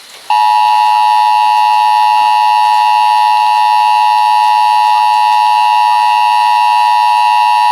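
Emergency Alert System two-tone attention signal, a loud steady electronic alarm tone that starts about a third of a second in and holds unbroken. Its two tones near 850 and 960 Hz come with several extra tones alongside.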